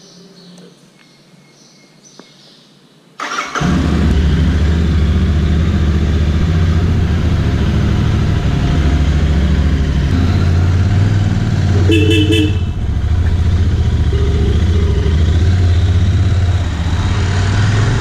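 Royal Enfield Interceptor 650's parallel-twin engine starting suddenly about three seconds in, then running loud and steady as the bike rides off. A brief horn beep comes about twelve seconds in.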